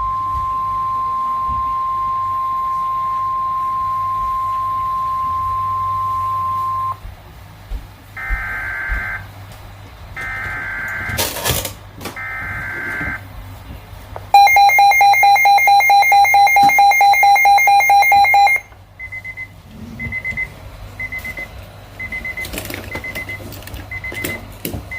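Emergency alert broadcast tones: a steady single-pitch beep for about seven seconds, then three short bursts of warbling data tones, then a loud pulsing multi-tone alarm for about four seconds, then a run of short, evenly spaced high beeps.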